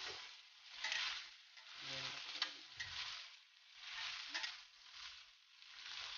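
Potato batons and sliced onion frying in oil in a stainless steel kadai while being stirred with a steel spoon: a faint sizzle that swells about once a second with each stroke, with a few light clicks of the spoon against the pan.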